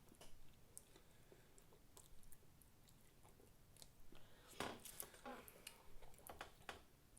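Faint, wet mouth sounds of someone biting into and chewing a chocolate-covered strawberry, with scattered small clicks that are loudest about four and a half seconds in.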